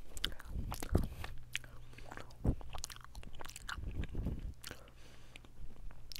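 Close-up chewing of mochi, with irregular mouth clicks as it is bitten and worked.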